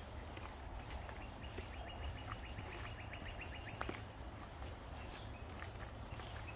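Outdoor ambience with a steady low rumble and scattered soft clicks. Starting about a second and a half in, a trill of rapid chirps, about nine a second, runs for roughly two seconds.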